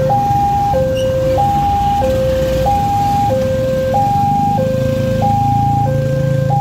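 Railway level-crossing warning alarm from the horn loudspeaker on the crossing post: a loud two-tone electronic signal alternating steadily between a high and a low tone, each about two-thirds of a second long. It warns that a train is approaching and the barrier is coming down. Low engine noise from passing motorcycles runs beneath it.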